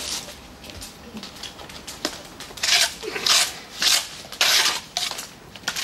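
Trowel scraping wet mortar in a metal bucket: about five rasping strokes in quick succession, starting a little before halfway.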